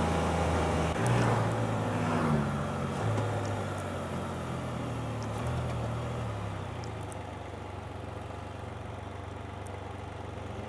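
Motor vehicle's engine running as it drives, its pitch changing in steps about one and two seconds in, then holding steadier and gradually getting quieter.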